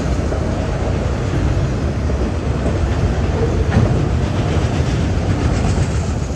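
Freight train rolling past: a steady, loud rumble of the cars on the rails, with clicking of wheels over the rail joints.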